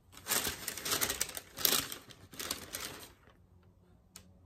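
Crinkly packaging being handled, rustling and crackling in about four surges over some three seconds, then stopping.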